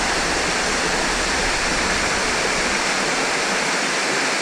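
Waterfall rushing: a steady, even sound of falling water, close to the microphone.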